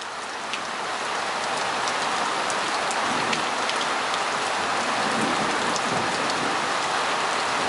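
Heavy thunderstorm rain falling steadily: a dense hiss of downpour with many small, sharp ticks of single drops striking close by. It swells a little over the first second, then holds steady.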